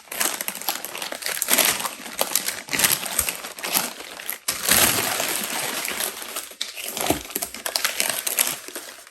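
Wrapping paper crinkling and rustling as it is pulled off a camera, with many small crackles.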